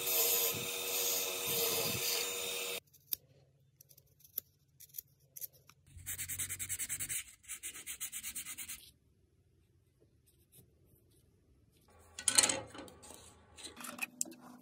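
A wood lathe running, which cuts off abruptly about three seconds in. Later a cloth is rubbed quickly back and forth along a turned wooden wand, about eight strokes a second for nearly three seconds, and near the end comes a sharp knock with some clatter.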